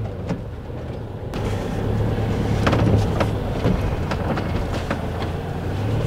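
Motorhome cab noise while driving slowly on a wet road: the engine runs low and steady, and the road noise grows louder about a second in.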